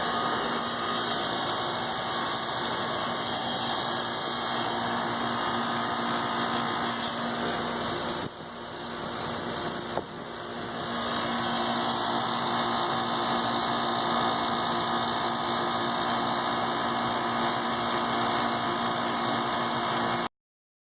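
Refrigeration vacuum pump running steadily, evacuating a split air-conditioning system's refrigerant lines after a leak repair. It drops briefly about eight seconds in, with a click near ten seconds, and then carries on as before.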